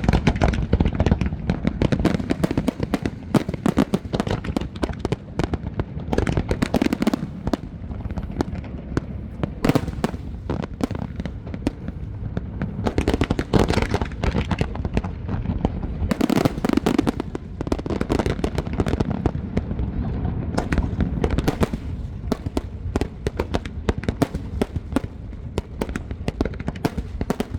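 Large fireworks display: aerial shells bursting in a dense, continuous barrage of sharp reports and crackling, with louder clusters every few seconds.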